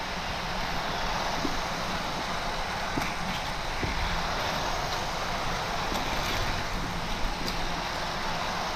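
Die-cast Hot Wheels cars running down orange plastic track: a steady rolling rumble with a few light clicks.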